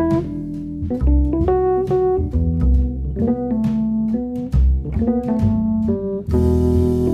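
Background jazz music: plucked guitar notes over a bass line. A held horn chord comes in about six seconds in.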